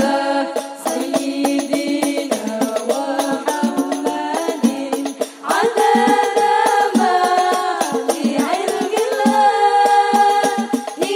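Several young women singing an Islamic devotional song together into microphones, with rebana frame drums beating time. The singing pauses briefly about five seconds in before the next phrase starts.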